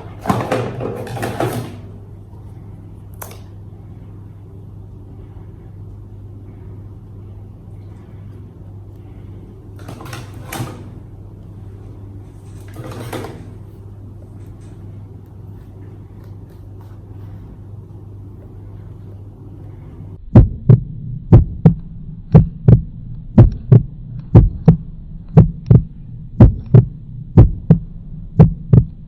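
AirPods box packaging rustling and crinkling at the start, with two shorter rustles midway, over a steady low hum. About two-thirds of the way through, a regular low thumping starts, about two beats a second, and becomes the loudest sound.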